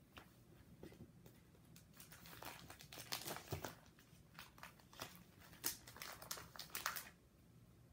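Clear plastic binder card pages crinkling and crackling as they are handled and turned, in a run of short crackles that stops near the end.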